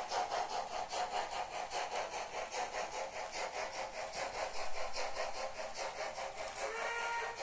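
H0 model train running on a Märklin layout, with an even rhythmic beat of about four to five pulses a second. A short run of higher tones comes in near the end.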